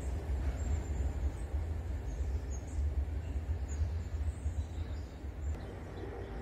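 Uneven low rumble of wind buffeting the microphone, with a few faint bird chirps above it; the rumble drops abruptly about five and a half seconds in.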